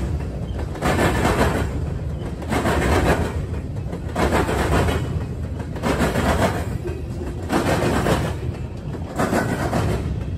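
Freight train's covered hopper cars rolling over a railroad diamond crossing, the wheels pounding across the crossing in repeated clattering bangs, roughly one cluster a second, over a steady low rumble of the moving train.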